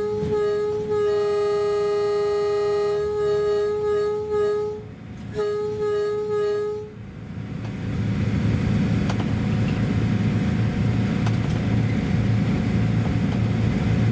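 Train air horn: one long steady blast of about five seconds, a short break, then a second shorter blast. After that comes the steady low rumble of the train running.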